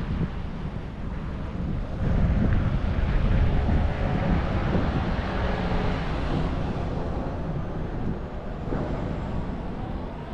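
Wind buffeting the microphone: a low, rumbling rush that gusts stronger about two seconds in.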